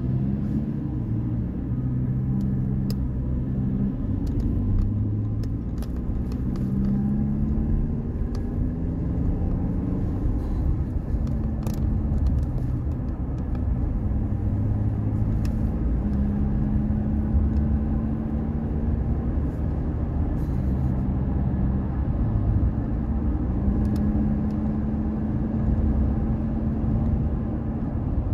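Car engine and road noise heard from inside the cabin while driving: a steady low rumble with the engine's hum shifting up and down in pitch several times.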